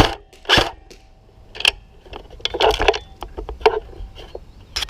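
Handling noise: a few irregular knocks and rustles, unevenly spaced.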